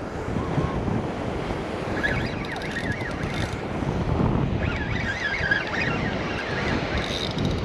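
Wind buffeting the microphone over breaking surf, with high wavering chirps about two seconds in and again around five seconds in.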